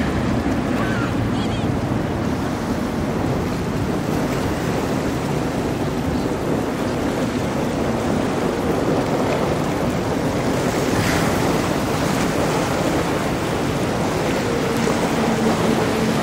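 Wind rushing over the microphone and waves washing, with powerboat engines running; a steady engine drone comes in near the end.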